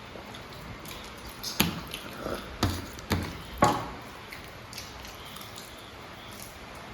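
Four sharp knocks, spread between about a second and a half and four seconds in, with a few lighter clicks around them over a faint room hush.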